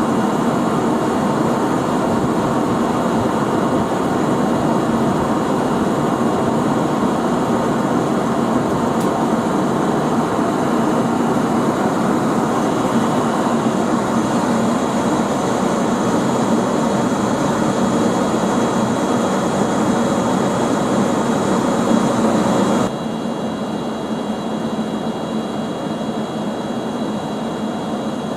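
Steady noise from a locomotive standing or moving at the station, with faint high steady tones. The level drops suddenly about 23 seconds in.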